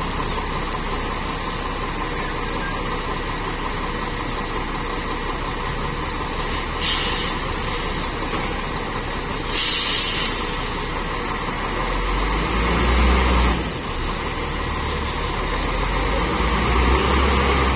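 Zoomlion QAY200 all-terrain crane's diesel engine running while it is driven up onto a low loader deck. There are two hisses of air brakes, a short one about seven seconds in and a longer one about ten seconds in. From about twelve seconds the engine's low rumble grows louder as it takes load.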